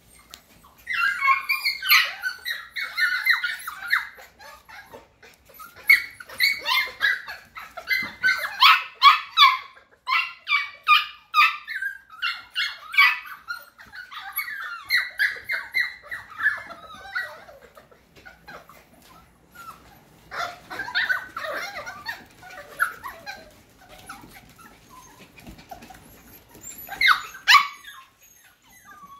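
Cockapoo puppies yipping and whining, high-pitched, in several bursts with quieter gaps between, a short loud cry near the end.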